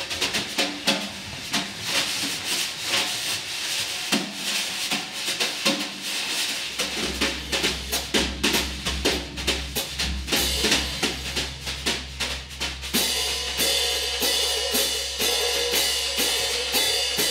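A Ludwig drum kit played live in fast, dense strokes on snare and bass drum with cymbals. The playing gets busier, with a steady cymbal wash, about three quarters of the way through.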